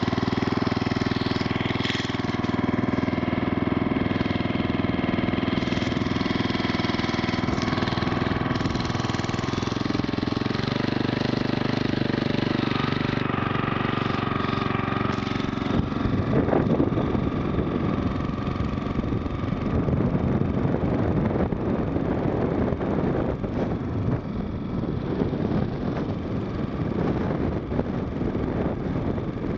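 Single-cylinder 5 hp Briggs & Stratton lawnmower engine driving a homemade motorized bicycle, running steadily under way. About halfway through, wind rushing over the microphone rises and largely covers the engine.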